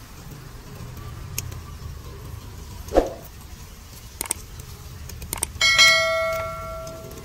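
Clatter of metal utensils at a street-food grill: a few light clicks and a dull knock, then near the end a metal object is struck and rings out like a small bell, fading over about a second.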